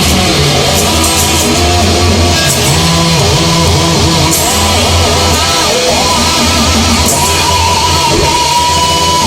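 Rock music led by electric guitar, with no words sung; a long held note comes in near the end.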